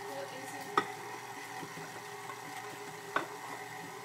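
Stand mixer running steadily, its beater turning batter in the steel bowl. Two sharp knocks stand out, about a second in and near the end.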